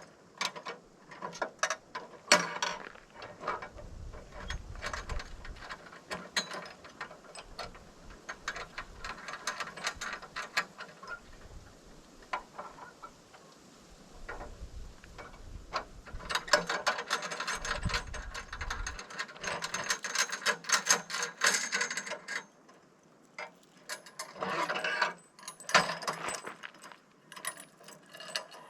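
Metal ratchet clicking in quick runs of many clicks, with a few scattered single clicks between; the longest run comes in the second half.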